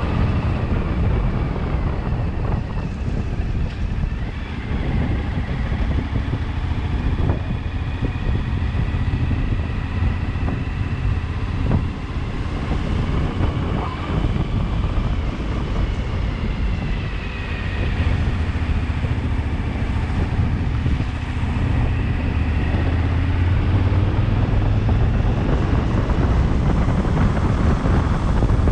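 Motorcycle ride heard from a helmet-mounted camera: a steady low rumble of wind buffeting the microphone over the bike's running engine, whose pitch rises and falls.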